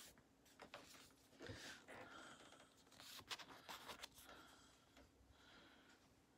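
Faint rustling of a paper sheet being handled and held up, with a few soft clicks.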